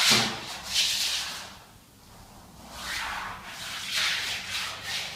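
Vinyl wallpaper strip rustling and swishing as it is slid and smoothed by hand against the pasted wall, about five strokes.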